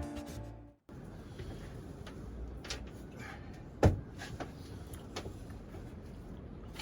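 Tail of background music fading out, then a few light knocks and clicks in a small room, with one sharper knock about four seconds in.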